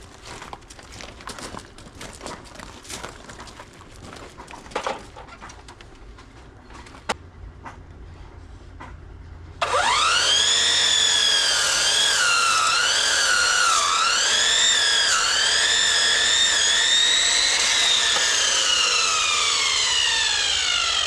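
Scattered knocks and taps of building work, then an electric power saw starts with a loud whine that rises fast in pitch. The pitch wavers and dips as the blade cuts wood, and the motor winds down with a slowly falling whine near the end.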